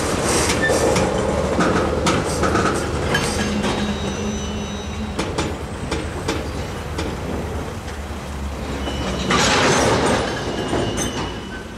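Freight train tank cars rolling past, their steel wheels clicking irregularly over the rail joints with a few faint high squeals. The wheel noise swells briefly about nine seconds in, then fades as the cars move away.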